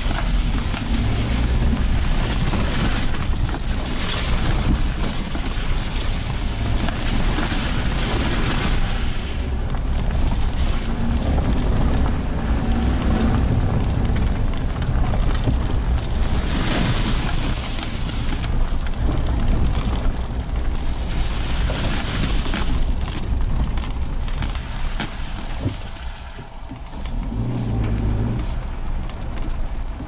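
Suzuki Jimny Sierra driving on a gravel forest road: engine running under a steady low rumble, with tyres knocking and crunching over stones and ruts.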